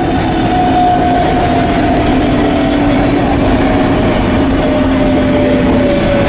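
Circumvesuviana local train running: a steady, loud rumble of wheels and motors with a whine that slowly falls in pitch.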